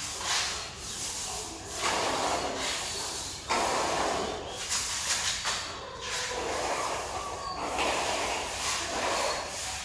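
Hand sanding on a wall beside a door frame: a run of rubbing strokes, each about a second long, with short gaps between them.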